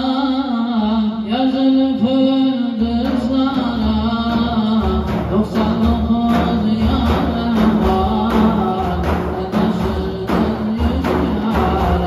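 Several large hand-played frame drums beating together in a steady, dense rhythm, with a voice singing a folk song over them; the drum strokes come in strongly about three seconds in.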